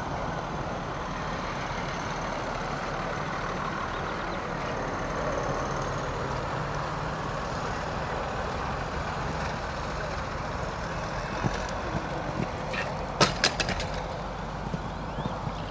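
A steady engine-like rumble with a cluster of sharp knocks near the end, as the horse's hooves strike the arena footing at a fence.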